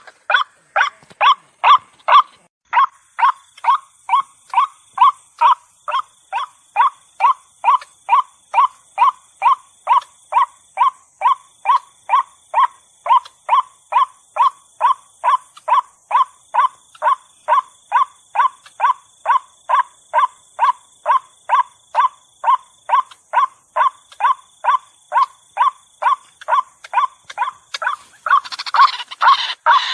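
White-breasted waterhen calling a long, monotonous series of repeated notes, about two a second, played as a lure call to draw the birds in. Near the end a harsher, noisier call joins in.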